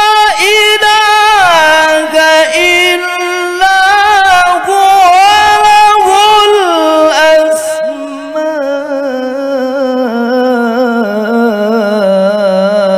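A male Quran reciter's voice in melodic mujawwad recitation, drawing out long notes into a microphone with no clear words. A high held note slides down about a second and a half in, wavering ornamental runs follow in the middle, and from about eight seconds a lower note is held with a fast trembling ornament.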